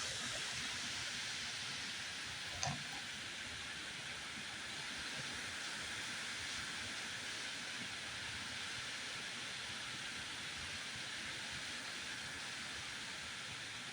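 Steady rushing hiss of strong wind, with one short knock about three seconds in.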